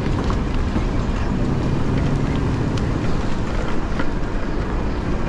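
Steady rush of wind and city traffic noise heard while riding an e-bike, with a low rumble and a few faint clicks.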